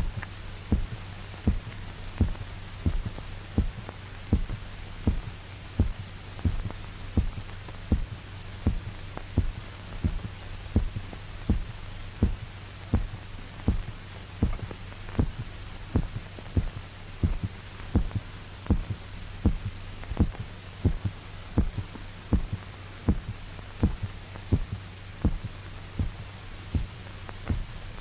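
A dog's heartbeat: regular low thumps, about three every two seconds. The heart is still beating while the dog's blood is drained. Under it runs a steady low hum and the hiss of an old optical film soundtrack.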